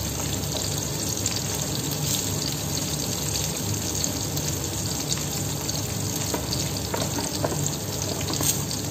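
Eggplant slices frying in a shallow layer of oil in a steel pan: a steady sizzle with a few sharp pops in the second half. A low steady hum runs underneath.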